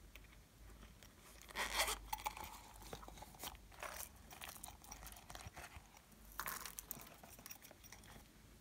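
Hands squeezing and handling a silicone pop-it owl pouch, making short crunchy, crackling bursts about 2 seconds in, again around 4 seconds and near 6.5 seconds.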